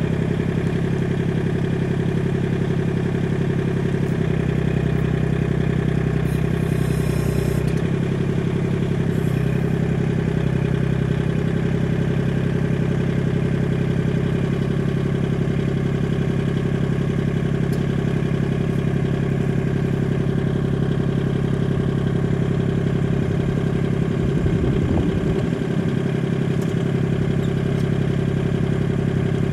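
Tractor engine running at a steady speed. A brief change in tone with a hiss comes about six seconds in, and some low knocking comes near the end.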